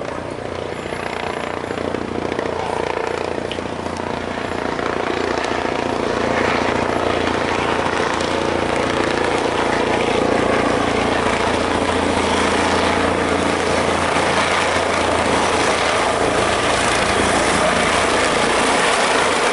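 Bell 429 helicopter approaching to land, its rotor and turbine noise growing steadily louder as it comes closer.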